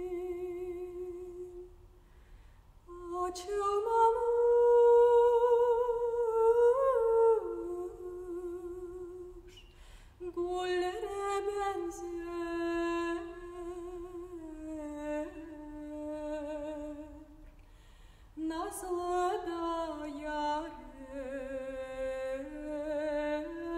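A woman's solo voice singing a slow melody unaccompanied, much of it hummed with closed lips. The notes are long and held with vibrato, in phrases broken by breaths about 2, 9 and 18 seconds in. The loudest phrase comes between about 4 and 7 seconds.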